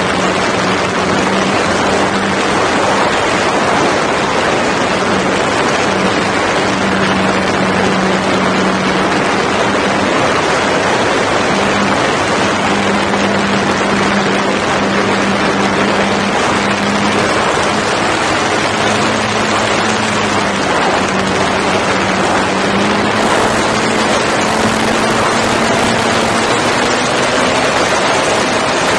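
RC P-51 Mustang model plane's motor and propeller heard from a camera mounted on the plane, under heavy wind rush on the microphone: a steady hiss with a droning tone that wavers with the throttle, rising a little in pitch near the end.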